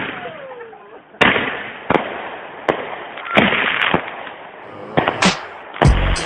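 Aerial fireworks bursting overhead: a series of sharp bangs roughly a second apart, each followed by a fading crackle.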